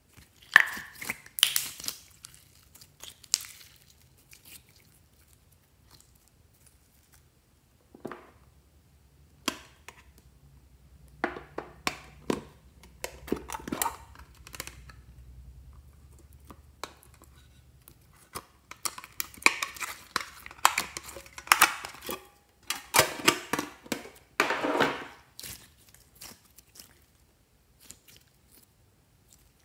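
Slime being handled and squeezed out of a plastic container, giving sticky crackling and squelching in short bursts, with clicks and knocks of plastic containers in between.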